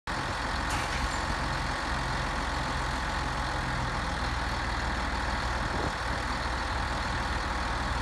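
John Deere 8310 tractor's six-cylinder diesel engine idling steadily.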